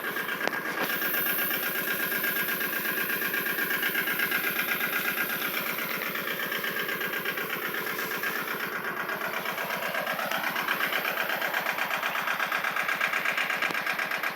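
Hinomoto compact tractor's engine running steadily with a fast, even pulse and slight slow shifts in pitch, at work cutting hay with a sickle bar mower.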